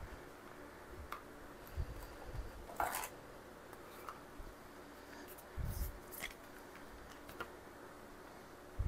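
Quiet kitchen handling sounds while a lasagna is layered in its pan: a handful of soft knocks and light clicks and scrapes of a utensil working the filling, over a faint steady hum.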